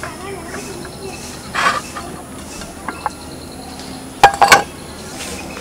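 Ceramic plates and serving utensils being handled: a brief scrape a little over a second in, then two sharp ringing clinks about four seconds in.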